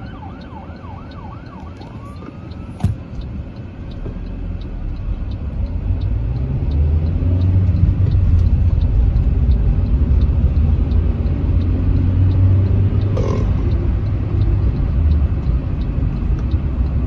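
A fire engine's siren yelps in fast rising and falling sweeps, fading out within the first two seconds. Then a vehicle's engine and tyre rumble, heard from inside the cabin, rises in pitch and level as it accelerates and holds steady, with a faint regular ticking and a single sharp click about three seconds in.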